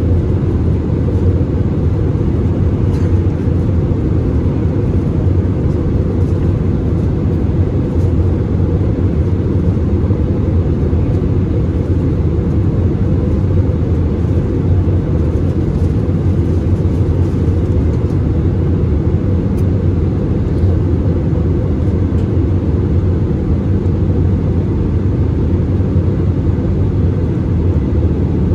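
Cabin noise inside an Airbus A320-216 in flight, heard from a window seat over the wing: the CFM56 engines and the airflow over the fuselage make a steady, even low rumble.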